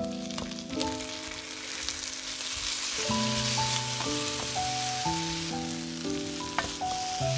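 Matchstick potatoes and sliced red onion sizzling as they fry in a nonstick pan, stirred now and then with a wooden spatula, with a light knock near the end. Background music with held notes plays along.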